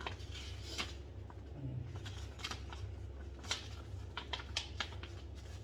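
Irregular light clicks and rustles of a paper card and packaging being handled, over a steady low hum.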